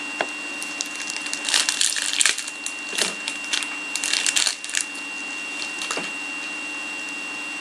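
Trading card pack wrappers and cards being handled, crinkling and rustling in two bursts with small clicks, over a steady faint electrical hum.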